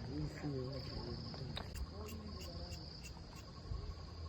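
Insects chirring steadily in a high, even drone, with a fainter rapid pulsing call underneath.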